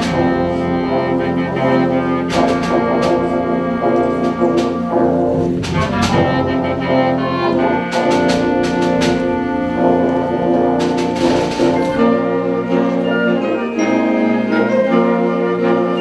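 Concert wind band playing live: sustained brass and woodwind chords punctuated by sharp percussion strikes. About twelve seconds in the bass drops out and the scoring thins to a lighter texture.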